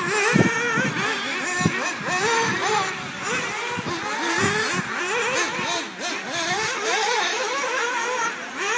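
Several 1/8-scale nitro RC buggy engines revving, their high-pitched whine rising and falling as the buggies race. A couple of low thumps come about half a second and just under two seconds in.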